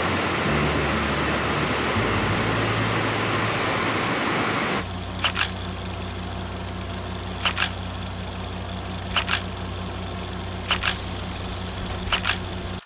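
A dense rushing noise with low steady tones, which gives way abruptly, about five seconds in, to a steady low hum. Over the hum, pairs of sharp quick clicks come about every second and a half, five times.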